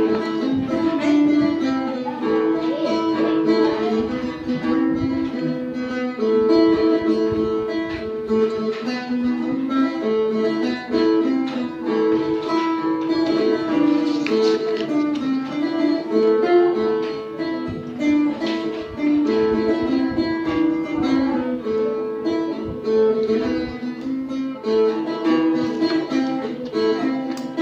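Phin, the plucked Isan lute, playing a continuous melody of quickly repeated plucked notes.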